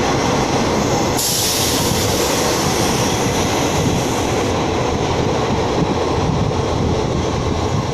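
Diesel passenger train pulling out of the station, a steady rumble of engine and wheels on the rails. A high hiss comes in over it about a second in and stops about three seconds later.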